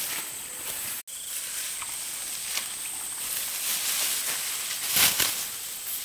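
Rustling of plant stalks over a steady high-pitched hiss, with a louder swish about five seconds in. The sound cuts out for an instant about a second in.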